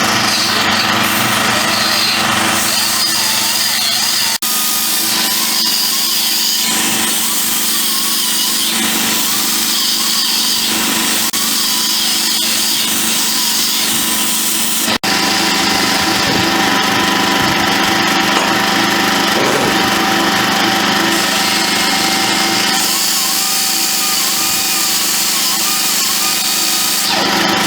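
Cutoff wheel grinding through steel exhaust pipe: a loud, steady high whine whose pitch wavers as the wheel bites. It breaks off abruptly twice and picks straight up again.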